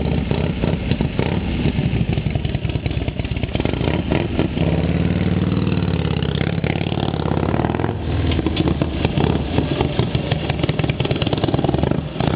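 A freshly built custom bobber's V-twin motorcycle engine running on its first start-up. It rumbles steadily, then rises and falls in pitch about four to five seconds in as the bike pulls away and rides off.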